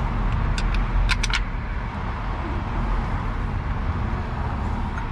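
A few short, sharp metal clicks about a second in, from hand tools working the belt tensioner's bolt. A steady low outdoor rumble runs underneath.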